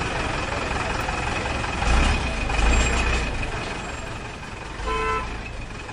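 Tractor engine sound running steadily, swelling twice in a low rumble about two seconds in, with a short pitched beep near the end.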